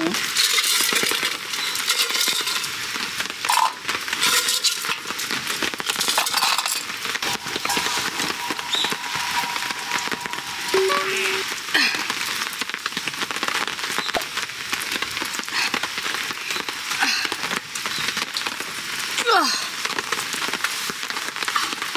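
Rain pattering steadily on a tarp overhead, a dense even patter of light drops.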